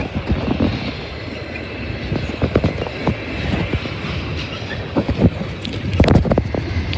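Intermodal freight train of highway trailers on flatcars rolling past close by: a steady low rumble with steel wheels clacking over the rail joints, and a louder clatter about six seconds in.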